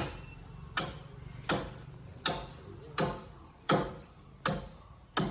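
Axe chopping into a tree trunk: a steady run of eight sharp blows, one about every three-quarters of a second, each ringing off briefly.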